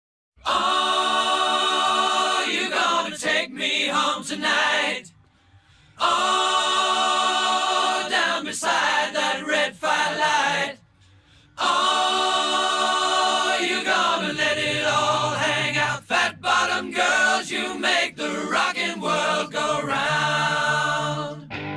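Layered a cappella vocal harmonies: the unaccompanied sung intro of a rock song. There are three phrases, broken by two short pauses about five and eleven seconds in.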